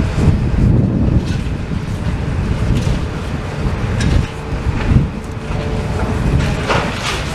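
Demolition excavator running while it pulls debris from a burnt-out building, with a few short clatters of debris. Wind buffets the microphone.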